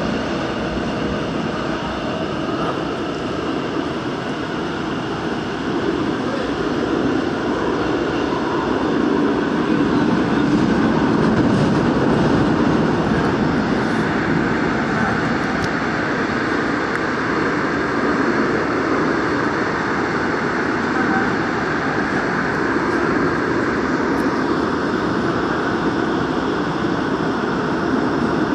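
Daegu Metro Line 2 subway train running through a tunnel, heard from inside the carriage: a steady running noise of the wheels on the rails, getting a little louder about ten seconds in and easing off again.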